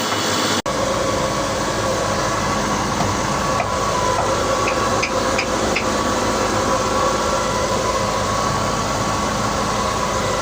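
Woodworking machine for making rolling-pin handles, running steadily with a constant hum, cutting out for an instant about half a second in.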